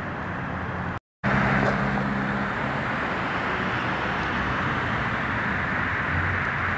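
Street noise of idling vehicles and passing traffic: a steady low engine hum under an even hiss, broken by a brief gap of silence about a second in.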